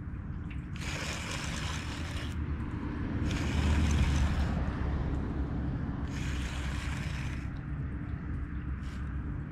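Baitcasting reel being cranked in three spurts of about a second and a half each, a dry, gritty whir from its gears, which the angler says sounds like it needs oil. Wind rumbles on the microphone underneath, strongest about four seconds in.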